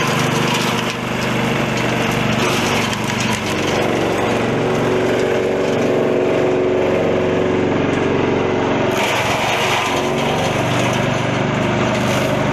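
Leaf and twig shredder running steadily under power, a belt-driven chopper machine with a steady motor hum. From about nine seconds in a rougher, crackling rush joins as leafy branches are fed in and chopped.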